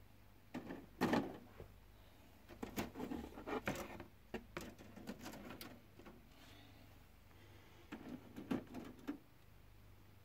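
Plastic miniature sprues and their packaging rustling and clicking against a cardboard box as they are packed into it by hand. The handling comes in three spells of quick knocks and rustles with short pauses between.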